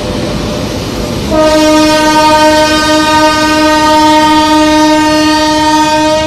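Passenger train pulling out past the platform with a steady rolling rumble; about a second in, an Indian Railways WAP-7 electric locomotive's air horn sounds one long, steady, loud note that lasts about five seconds.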